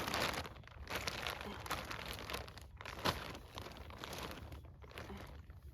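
Clothing rustling and crinkling as it is handled, loudest at first, with one sharp knock about three seconds in.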